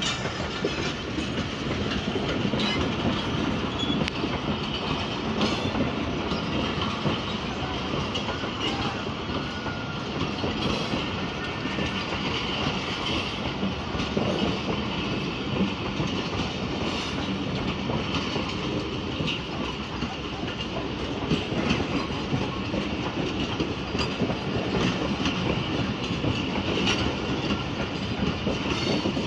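Fareed Express passenger train rolling past steadily, its wheels clicking and clattering over the rail joints.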